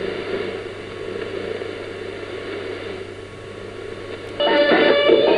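Shortwave AM radio reception: band hiss and noise around a weak, nearly unmodulated carrier. About four seconds in, the programme audio cuts in suddenly as plucked-string music, much louder than the hiss.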